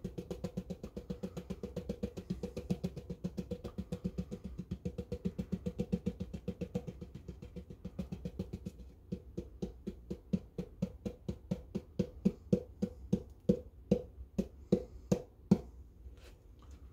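Wooden skewer knocking and scraping around the inside of a plastic mixing cup, scraping out the last of a thick cement mix. A quick, even clicking slows about halfway through into fewer, sharper and louder taps.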